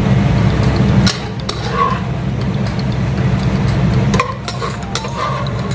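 A spoon scraping and clinking against a coated cooking pot as food is scooped out, with a cluster of sharp clinks about a second in and another about four seconds in, over a low steady hum.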